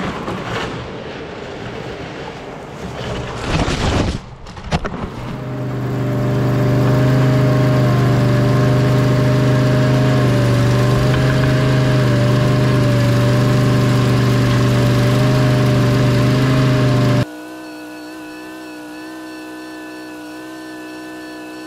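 Rustling clatter with a few sharp knocks, then the engine of a compact hydraulic machine starts up and runs at a steady, loud pitch. Near the end the sound drops suddenly to a quieter, steadier hum.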